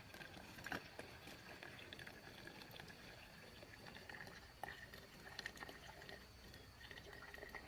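Faint night-time forest ambience: a thin, steady chorus of calling night creatures, with a few small scattered clicks.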